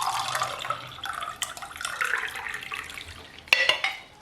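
Water pouring in a stream into a cooking pan as cups of water are measured in, then a sharp clink about three and a half seconds in.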